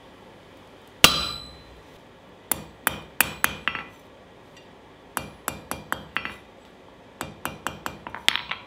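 Blacksmith's hand hammer striking a cooled steel bar, the forged nutcracker arm, on the anvil face. One loud ringing clang about a second in, then three runs of lighter, quick blows, the last run the fastest.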